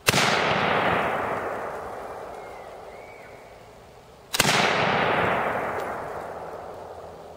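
Two rifle shots from an Adams Arms AR-15, about four and a half seconds apart, each followed by a long echo that dies away over about three seconds.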